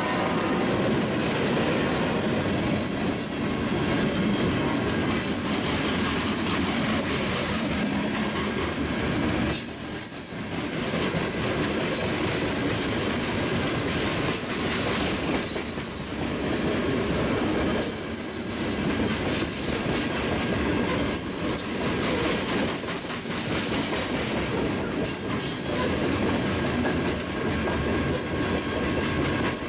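CSX freight train of open-top coal cars rolling steadily past, its wheels clacking over the rail joints, with high wheel squeal that comes and goes.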